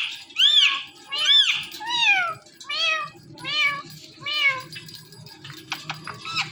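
Indian ringneck parrot mimicking a cat's meow, about seven meows in a row, each rising and falling in pitch, growing fainter and stopping a little after halfway.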